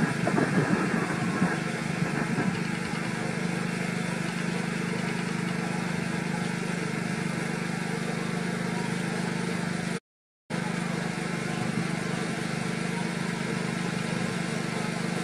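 A steady engine hum, like a motor idling, with a rougher, uneven patch in the first couple of seconds; the sound drops out for about half a second around ten seconds in.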